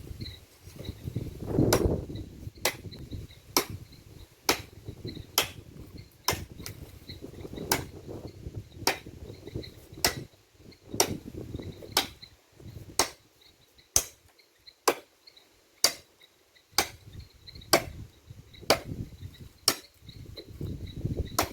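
Sharp, evenly spaced knocks, a little more than one a second, over a faint high chirping of insects.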